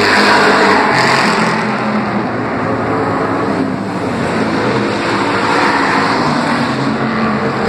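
Engines of several street stock race cars running at racing speed around a paved oval track, loudest in the first second or so as a car passes close by.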